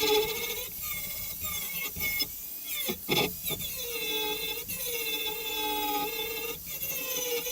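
Angle grinder grinding down welds on a metal frame: a high-pitched motor whine over a rasping hiss, its pitch sagging each time the disc is pressed into the metal and rising again as it eases off. There is a brief break about three seconds in.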